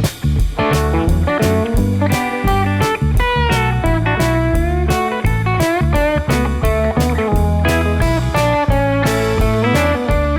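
Background music: guitar-led blues with a steady drum beat.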